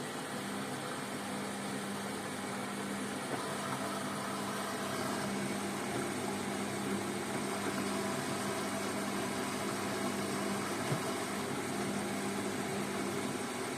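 Hotpoint Ariston washing machine running with a steady motor hum and a constant low tone, and one faint click near the end.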